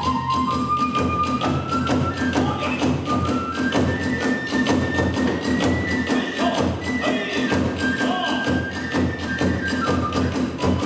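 Kagura hayashi ensemble playing: a bamboo flute carries a stepped melody over rapid, steady drum strikes and small hand cymbals.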